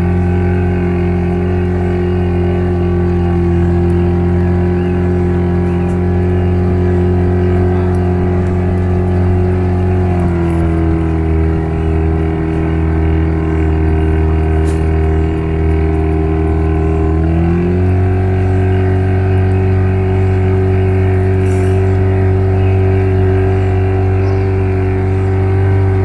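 Boat's outboard motor running steadily under way, with a deep droning hum. Its pitch drops slightly about ten seconds in and rises a little again past seventeen seconds as the engine speed changes.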